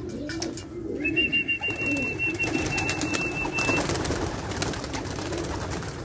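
Young domestic flying pigeons cooing, a low wavering coo that goes on throughout. A thin, high, steady trill joins about a second in and lasts nearly three seconds. Scattered wing flaps follow as the birds fly up.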